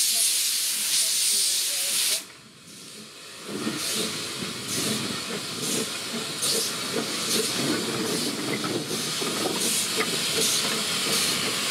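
2 ft gauge steam locomotives on the move: loud steam hissing from open cylinder drain cocks stops suddenly about two seconds in, then the exhaust chuffs in a steady beat of about two a second.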